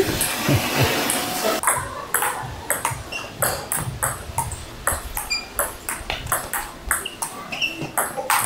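Table tennis rally: the celluloid-type ball clicking off the paddles and the tabletop in a run of sharp taps, about two to three a second.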